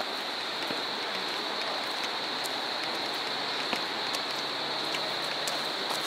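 Steady rush of water, with a steady high-pitched whine above it and a few faint clicks.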